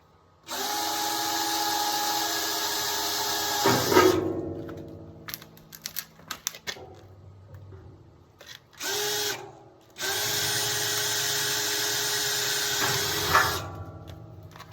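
Power drill with a 1/8 inch bit drilling holes through a cast iron flue collar into a steel barrel stove: two steady runs of about three seconds each, each ending in a sharp peak, with a short burst and a few clicks between.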